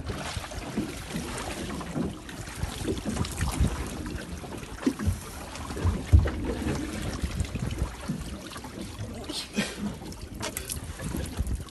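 Sea water sloshing against the side of a small open boat, with wind on the microphone. A swimmer climbs back aboard over the side with bumps against the hull, the loudest about six seconds in, and water trickles off her.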